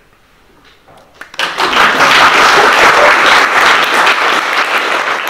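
Quiet for about the first second and a half, then an audience breaks into applause.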